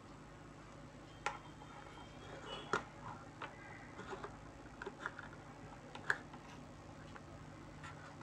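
Scattered light clicks and taps of a small plastic mini voice recorder and its USB cable being handled and set down on a desk, the sharpest about a second in, near three seconds and about six seconds in, over a faint steady hum.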